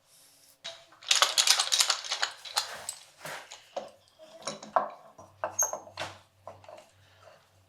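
Rapid clicking and rattling of small hard parts being handled, about two seconds long starting a second in, followed by scattered separate clicks and knocks.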